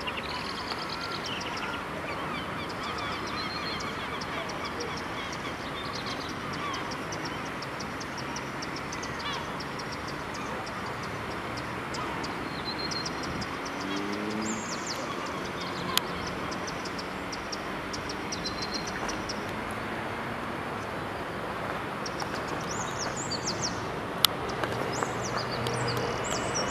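Outdoor ambience: a steady background hum with small birds chirping again and again and a few honking bird calls. Two sharp clicks, one midway and one near the end.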